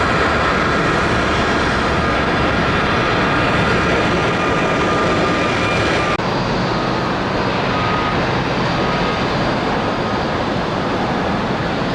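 Steady jet engine noise from a Boeing 737-800 freighter's CFM56 turbofans after touchdown. About six seconds in it cuts abruptly to the jet noise of an Airbus A220-300's geared turbofans at the start of its takeoff.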